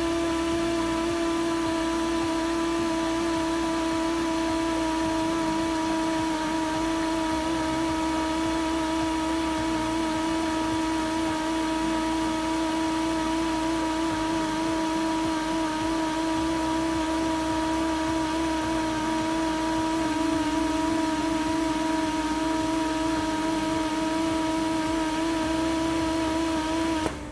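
Quincy rotary screw air compressor running with a steady whine over a hum. Its pitch steps down slightly about two-thirds of the way through, and the sound cuts off abruptly near the end.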